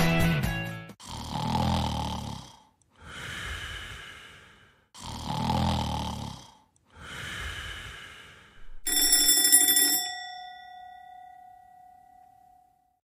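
Cartoon snoring: two slow cycles of a low snore on the in-breath and a breathy out-breath. About nine seconds in, an alarm clock rings once with a bright bell tone that dies away over a few seconds.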